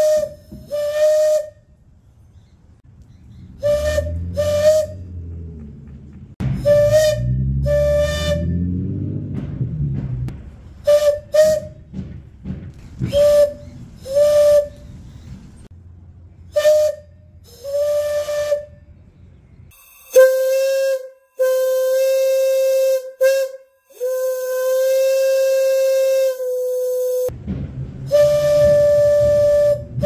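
3-inch plain-bell Lunkenheimer steam whistle, its bell lowered for a higher pitch, blowing one high tone: a string of short toots, mostly in pairs, then longer blasts at a slightly lower pitch, and a long blast near the end.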